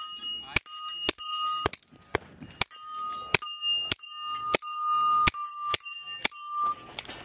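Suppressed pistol fired in a steady string of about a dozen shots, roughly half a second to a second apart. Most shots are followed by the bright ring of a steel plate target being hit.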